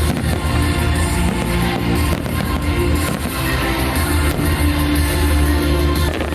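Music with a heavy bass line and a drum beat.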